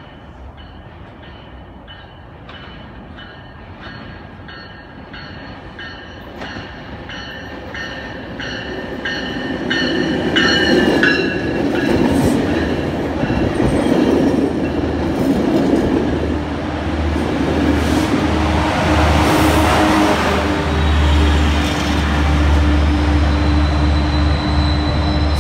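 A Metrolink commuter train arriving: a bell rings about twice a second as it approaches, then the rumble of its bilevel cars rolling past grows loud about ten seconds in. A diesel locomotive's engine runs low and steady through the last several seconds.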